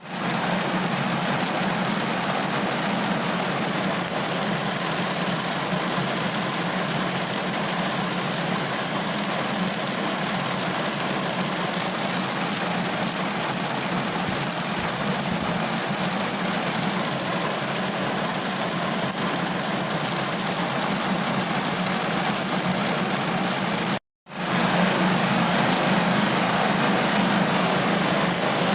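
Steady rain falling on a car roof, an even hiss with a low hum underneath. It cuts out for a split second once, near the end, then carries on slightly louder.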